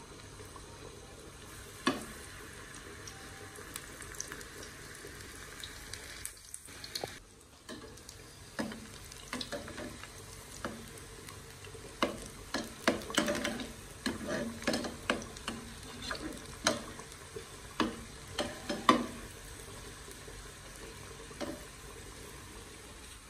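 Pakoras deep-frying in hot oil in a metal pan, a steady sizzle, with a metal slotted spoon scraping and knocking against the pan as they are turned, the knocks coming thickest through the middle stretch.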